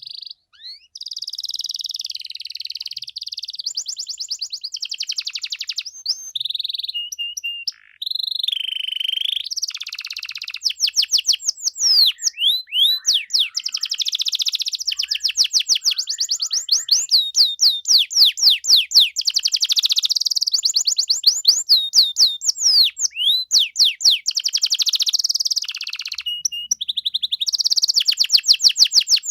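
Domestic canary singing continuously: a long, varied song of rapid trills, each a fast run of repeated high notes, switching to a new phrase every few seconds, with fast up-and-down sweeping notes from about ten seconds in.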